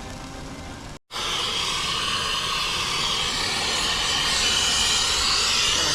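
Brazing torch flame hissing steadily while heating the copper line joints to unsweat the old compressor. It is quieter for the first second, then after a short break it is louder and brighter.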